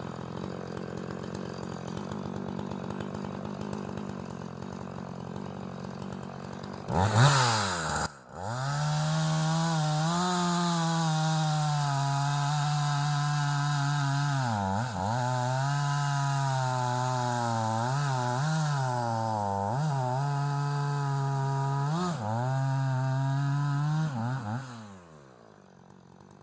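Two-stroke Husqvarna chainsaw running at a steady lower speed, then revved to full throttle about seven seconds in and cutting through an ash log for some fifteen seconds, its pitch dipping several times as the chain bogs under load. Near the end it winds down and goes quiet.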